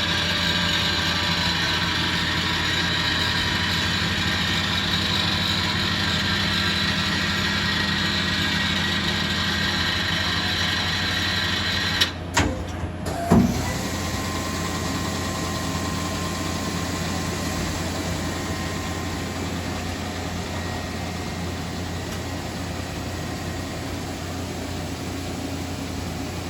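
Mori Seiki DuraTurn 2550MC CNC lathe running under power: a steady machine hum with several steady whining tones. About halfway there is a brief break with two or three knocks, after which it runs on a little quieter.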